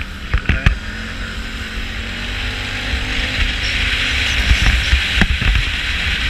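Motorcycle ride on a rough road: a steady rush of wind and road noise with the engine running underneath, the rush growing louder about halfway through. Irregular knocks and low thumps come from the GoPro rattling in a mount that isn't tight.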